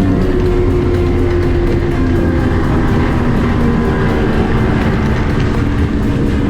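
Short-shaft 50 hp two-stroke Mercury outboard running flat out, with steady engine tones that shift slightly in pitch, under background music.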